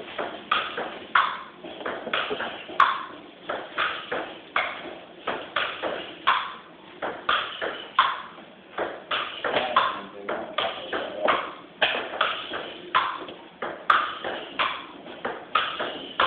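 Table tennis rally: the ball clicking off the paddles and the table in a steady, unbroken exchange, about two hits a second.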